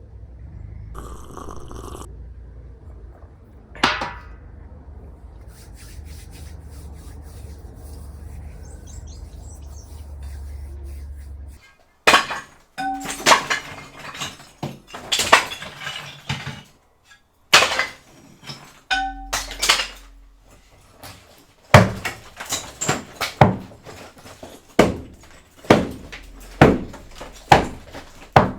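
A hammer striking, with ringing metallic clinks, knocking out a brick wall: sharp blows come irregularly, about one or two a second, from about twelve seconds in. Before that there is a low steady rumble and a single sharp knock.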